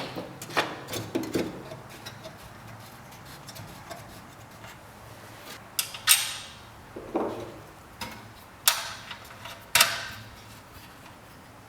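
A series of sharp clacks and knocks of hard objects being handled, irregularly spaced, several with a short ringing tail.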